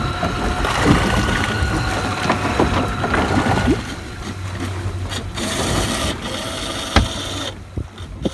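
Torqeedo Travel 401 electric outboard motor running with a steady whine over the rush of water and wind; the whine fades about four seconds in, and there is a sharp knock about seven seconds in.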